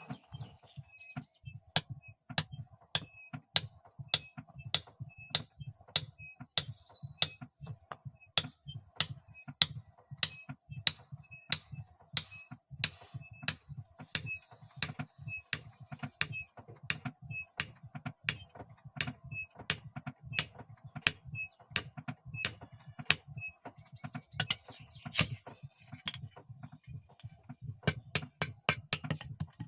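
Hammer blows on steel at the anvil, about two a second, each with a short metallic ring, with a few quicker blows near the end. A steady high hiss runs underneath for most of it.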